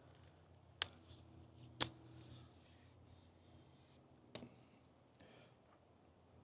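Three sharp metallic clicks with light rustling between them: bike parts, headset spacers and stem, being handled and fitted on the fork's steerer tube.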